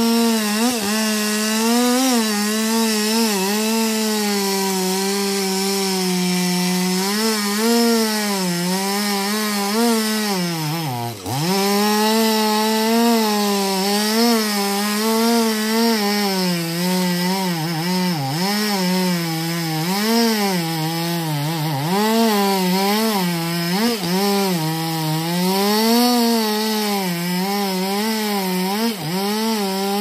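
Two-stroke chainsaw running at cutting speed while it saws into the base of a thick tree trunk, its engine note wavering up and down under the load. About eleven seconds in the revs drop sharply for a moment, then pick back up.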